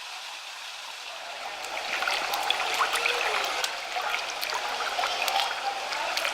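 Running water trickling and splashing, growing louder and busier about a second and a half in, with many small sharp splashes.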